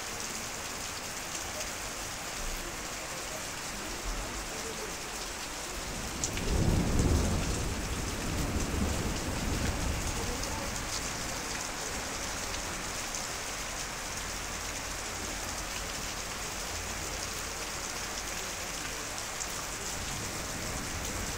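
Heavy rain pouring onto paving stones, a steady hiss of splashing drops. About six seconds in a roll of thunder rumbles up, peaks briefly and fades away over the next few seconds.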